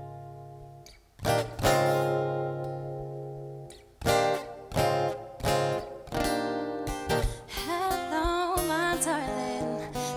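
Acoustic guitar chords struck and left to ring out and fade, spaced out at first and then coming more often. About three quarters of the way through, a woman's voice comes in singing over the guitar.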